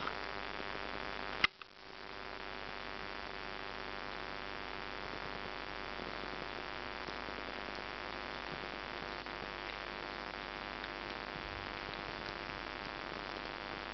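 Steady low hum and hiss. About a second and a half in, a sharp click is followed by a brief dropout, then the hum and hiss return.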